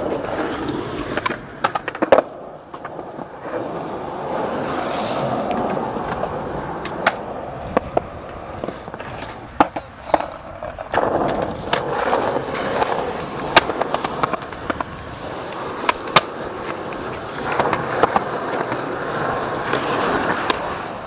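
Skateboard wheels rolling over rough concrete: a rumbling roll that swells and fades several times, broken by many sharp clacks of the board and wheels hitting cracks and joints.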